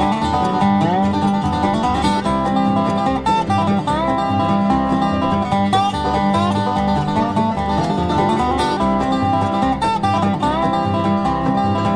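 Bluegrass band playing an instrumental passage without singing: a dobro playing sliding notes over banjo, acoustic guitar and bass.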